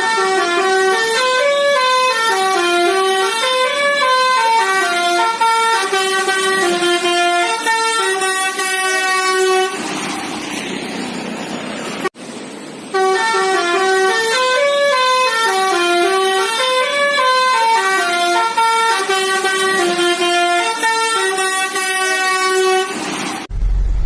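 Musical truck horn playing a tune of short stepped notes that climb and fall, about ten seconds long. After a couple of seconds of hiss it plays the same tune again.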